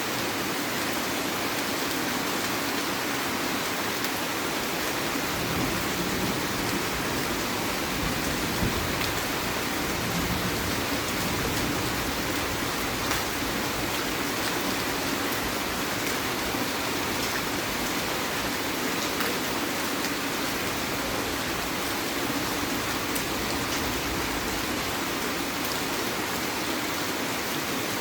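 Heavy rain falling steadily, an even hiss with scattered sharp drop ticks, and a soft low rumble for a few seconds about a fifth of the way in.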